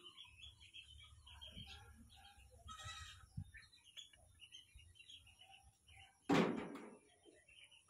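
Small birds chirping in the background, short scattered calls throughout, with one brief louder cry a little over six seconds in.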